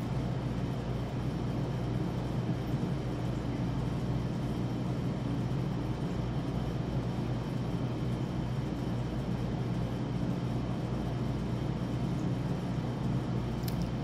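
A steady low hum with an even hiss, from a motor or fan running continuously.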